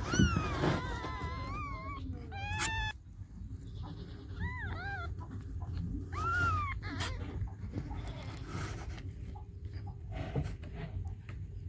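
Newborn kittens mewing for their mother: a string of high, wavering mews in the first two seconds, a few short rising-and-falling mews around the middle, then only rustling and faint clicks over a low steady rumble.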